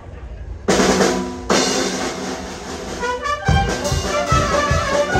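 Brass-band dance music striking up: a loud held brass chord comes in suddenly just under a second in and is struck again, then after a quick run a steady drum beat sets in under the brass.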